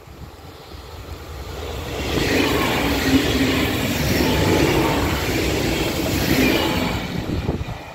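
Regional passenger train passing close by at speed: the rolling noise of wheels on rails builds over the first two seconds, stays loud for about five seconds, then fades near the end.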